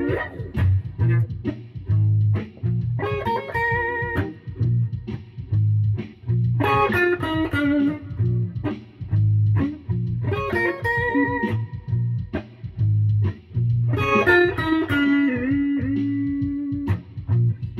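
Electric guitar playing a repeating riff, a phrase of picked notes coming round about every three and a half seconds over a steady low pulse. Near the end one note is bent and held.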